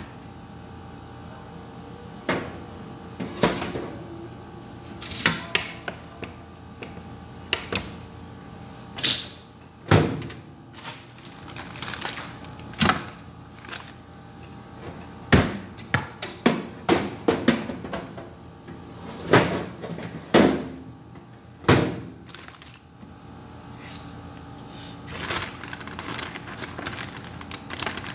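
Irregular knocks and clatter of kitchen work at a counter: metal baking trays and food being handled and set down, one sharp knock after another. A plastic bag of shredded cheese rustles near the end.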